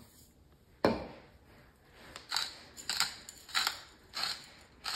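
Stainless steel salt grinder twisted by hand, grinding salt in about five short crunching strokes, roughly one every two-thirds of a second, after a single sharp knock about a second in.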